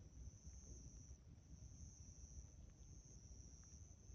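Near silence: a faint, steady high-pitched insect trill over a low rumble.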